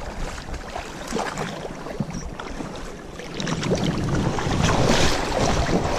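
Shallow river water splashing and sloshing around wading legs, with wind buffeting the microphone; the splashing grows louder about halfway through.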